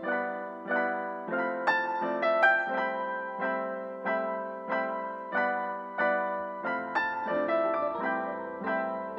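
Background piano music: gentle, evenly paced notes and chords.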